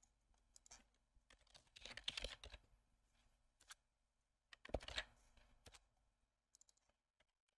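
Faint computer keyboard typing and mouse clicks, in a few scattered short clusters, the densest about two seconds in and again about five seconds in.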